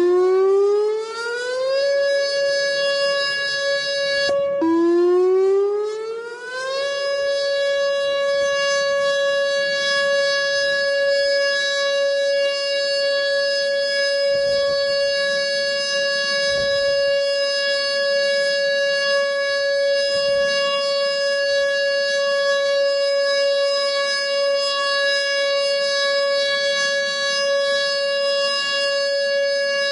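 Whelen WPS 2910 electronic outdoor warning siren sounding the steady alert tone of a siren test, activated three times in a row to make sure it triggers. It is still winding up at the start, cuts out about four and a half seconds in and winds up again, rising in pitch for about two seconds, then holds one steady, loud tone with many overtones.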